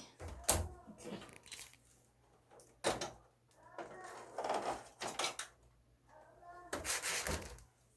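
Clicks, knocks and rattles of an air conditioner's plastic front panel and filters being handled, in separate bursts with a few sharp knocks, plus faint voices.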